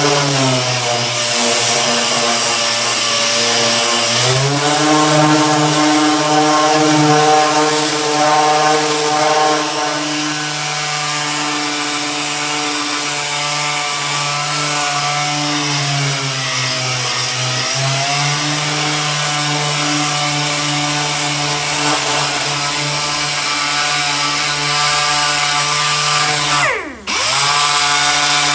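Dual-action sander with a coarse 50-grit pad running steadily against a tractor's metal hood, sanding off Herculiner coating. Its pitch dips a few times, and near the end it winds down sharply and spins straight back up.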